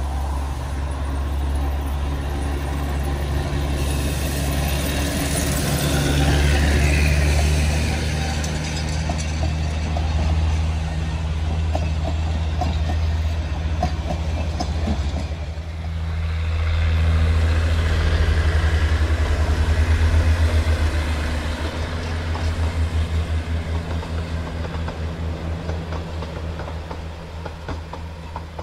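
Narrow-gauge diesel locomotives, a Baguley double-header, hauling a passenger train past: a steady engine drone under load, with the wheels clicking over rail joints as the carriages roll by. The engine sound beats in pulses later on and fades near the end as the train draws away.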